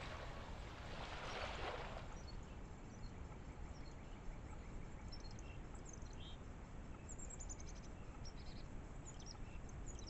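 Faint woodland ambience: a steady low hiss with a soft rustle in the first two seconds, then scattered distant high bird chirps, including a quick run of falling notes about seven seconds in.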